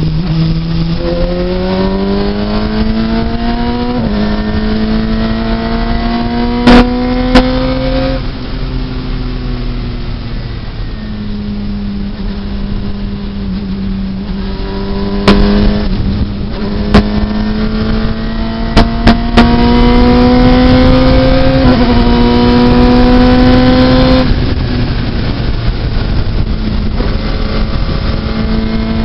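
Radical SR3 RS race car's engine, heard onboard, pulling hard with its pitch climbing for several seconds, easing off and dropping as the car slows for a corner, then climbing again for a long stretch before dropping once more. A handful of short, sharp knocks cut through the engine noise.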